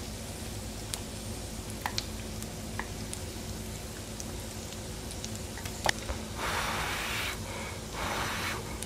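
Faint steady sizzle of makchang grilling on an electric tabletop grill, with a few light clicks of chopsticks against the pot and bowl. Near the end come two short breathy bursts, as of blowing on a hot bite of noodles and egg.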